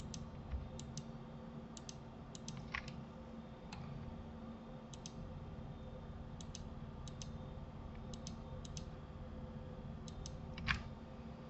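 Computer mouse and keyboard clicks, scattered through and mostly in quick pairs, over a low steady hum; one louder click near the end.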